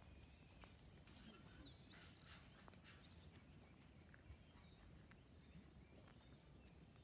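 Faint birds chirping: short high calls and whistles, busiest in the first three seconds, over quiet low background noise.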